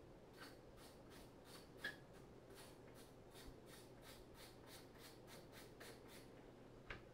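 Faint, rapid scraping strokes, about four a second for some six seconds, with a sharper click about two seconds in and another near the end.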